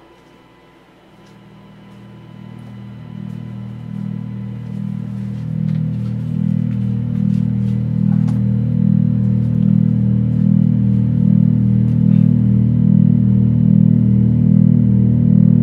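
Low electronic drone from a patch-cabled modular synthesizer, fading in about a second in and swelling steadily louder over the next several seconds, with a regular pulse in its level.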